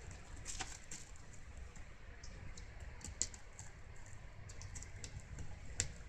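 A kitten's claws clicking and scraping on a woven wicker surface as it paws at a cord: irregular light clicks, with sharper ones about half a second in, around three seconds and near the end.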